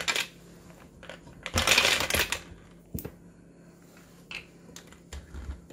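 Roasted hazelnuts being tipped into a plastic blender jug of milk and dates: a few light clicks, then a rattling pour of almost a second, followed by a single tap and a soft thump near the end.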